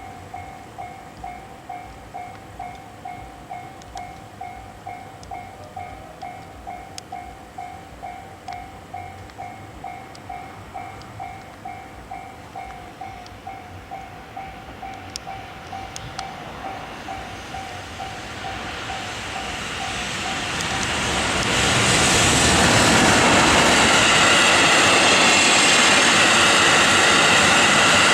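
Level-crossing alarm ringing a steady electronic ding about twice a second. About eighteen seconds in, a passing limestone freight train rises over it, and from about twenty-two seconds its loud rail and wheel noise drowns out the bell.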